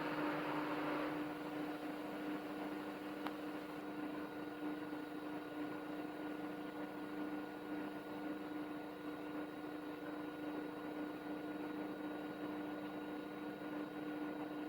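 Haier HW80-B14979 washing machine spinning at 1000 rpm: a steady hum with a constant whine above it, and a swishing that dies away about a second in. It runs quiet and smooth.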